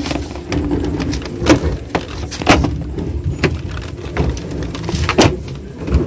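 Sharp knocks and clicks from handling the plastic body of a top-loading washing machine, about one a second, over a steady low hum.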